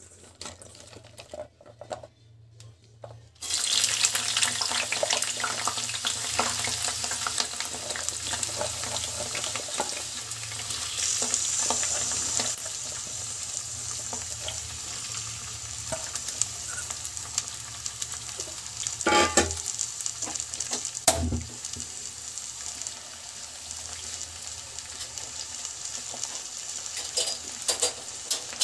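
Cut red onions frying in hot oil in a nonstick pan: a loud sizzle starts suddenly about three seconds in, as the onions go into the oil, and carries on steadily. Two short knocks come near the middle.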